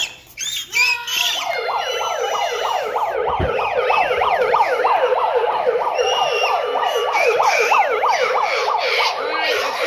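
A siren sounding in a fast yelp pattern, its pitch sweeping up and down about three times a second, starting about a second in after a few short vocal sounds.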